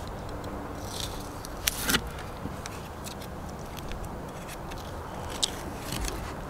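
A fillet knife cutting along the back of a sheepshead on a plastic cooler lid: small crackling scrapes, with two sharp clicks about two seconds in, over a steady low background rumble.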